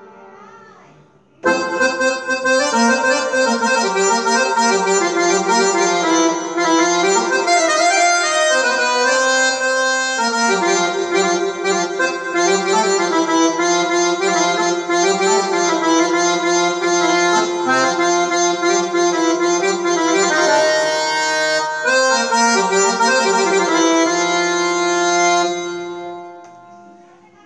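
Roland Lucina AX-09 keytar playing an Indian-style melody with an accordion-like reed voice, sustained notes over a held lower tone. It comes in about a second and a half in and fades out near the end.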